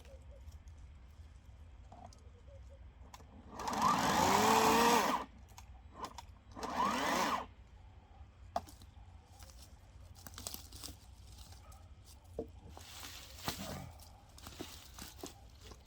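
Einhell 18 V cordless chainsaw's electric motor triggered in two short bursts, about four and seven seconds in, each spinning up and then dropping in pitch, with a weaker burst near the end.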